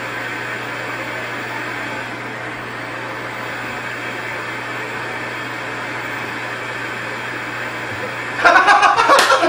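Steady hiss of analog TV static from a television receiving no signal after the digital switchover, over a constant low hum. Laughter and sharp slaps break in near the end.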